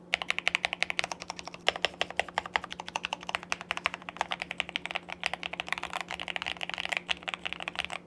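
Modded Tester 68 mechanical keyboard with XDA-profile keycaps being typed on quickly and steadily, a dense run of key strokes with a "nice and creamy" sound.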